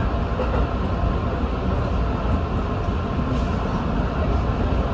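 Electric passenger train running at speed on straight track, heard from inside behind the driver's cab: a steady low rumble of wheels and running gear.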